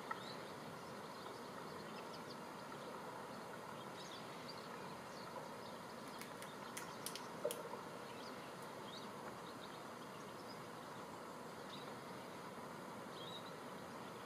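Faint, steady outdoor background hiss with scattered faint, short high calls of distant birds. A short run of sharp clicks comes about six to seven and a half seconds in.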